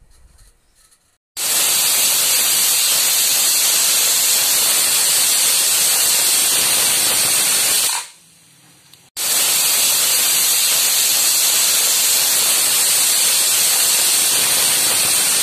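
Aluminium stovetop pressure cooker whistling: loud steam hiss escaping from under its weighted valve, two long blasts of about six seconds each with a short break between. These are the two whistles that show the rice pilau inside has cooked.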